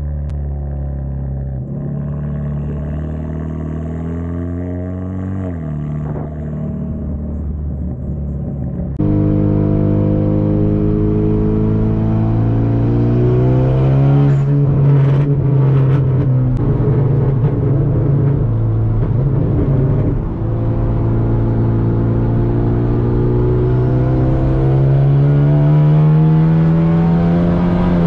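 Straight-piped Hyundai Genesis Coupe's turbocharged engine and exhaust droning steadily while cruising. About nine seconds in it is heard from inside the cabin, louder, with the pitch climbing slowly as the car speeds up, easing once and then rising again near the end.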